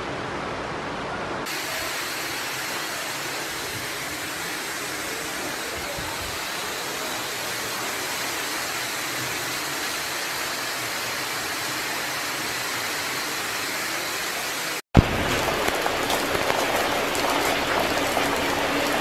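Steady rushing of flowing floodwater. Its tone changes abruptly about a second and a half in, and again about fifteen seconds in, where the sound drops out for an instant.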